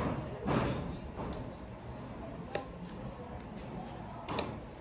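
A person chewing raw tuna, with a few sharp clicks of a metal fork and spoon against a plate.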